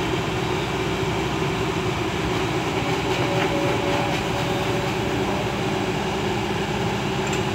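Diesel engine of a CAT 120B excavator running steadily. A faint thin tone comes and goes in the middle.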